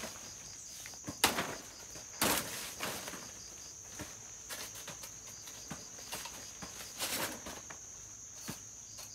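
Sharp cracks and rustles of a long pole blade hacking at banana leaves and stalks, the loudest about a second and two seconds in, with a few lighter ones later. Insects chirr steadily underneath in a high constant tone.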